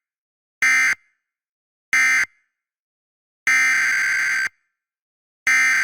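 Emergency Alert System SAME data bursts: harsh buzzing digital tones, first two short bursts a little over a second apart, then two longer bursts of about a second each. The short ones close out the end-of-message code of one alert, and the long ones are the header code of the next alert.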